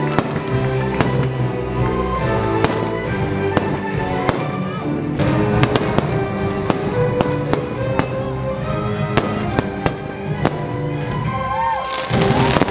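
Fireworks show: aerial shells bursting in a run of sharp bangs and crackles at irregular intervals, over music playing throughout. Near the end, whistling glides rise and fall.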